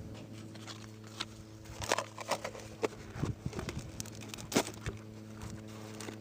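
Plastic crackling and clicking in irregular bursts as a plastic bottle is handled and cut with a knife, over a steady low hum.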